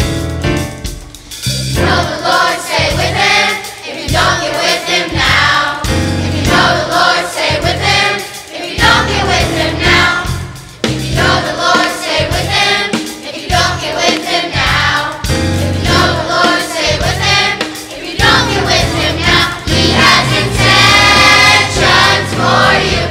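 Choir of music students singing a Christian song over instrumental accompaniment with a steady, pulsing bass beat.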